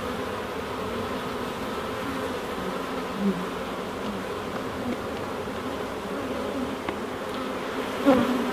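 Honey bees buzzing in a steady hum, with a few bees droning louder as they fly close past, one about three seconds in and another near the end.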